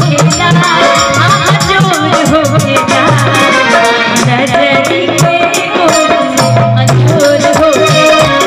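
Live Bhojpuri stage song: a woman singing into a microphone over an amplified band with steady, rhythmic percussion.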